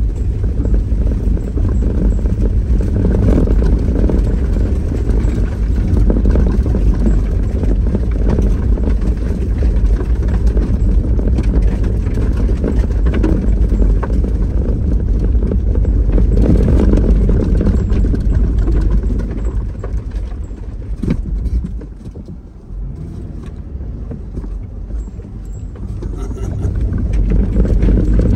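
A vehicle driving, with a steady low rumble of engine and road noise; it eases off a little past twenty seconds in and builds again near the end.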